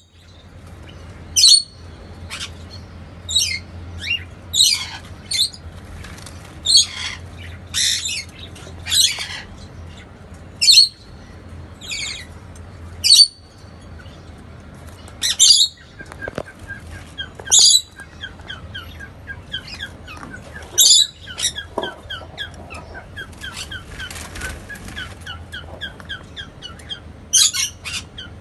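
Caged pet birds calling: short, high, sharp calls about once a second, with a fast run of soft chittering notes beneath them from about halfway through.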